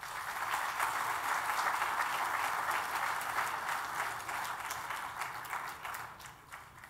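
Audience applauding, with the clapping dying away near the end.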